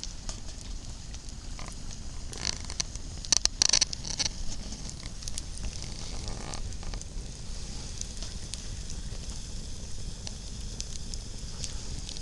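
Campfire burning, crackling steadily with scattered sharp pops, and a short run of loud pops a few seconds in.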